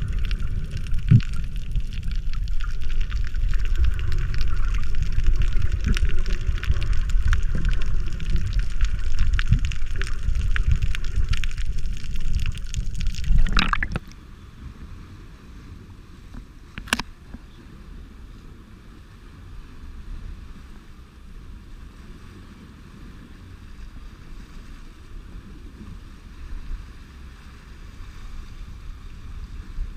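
Underwater recording: a steady low rumble of moving water with scattered crackles and pops. About halfway through it cuts off abruptly to the much fainter, steady wash of surf breaking over shoreline rocks, with one sharp click a few seconds later.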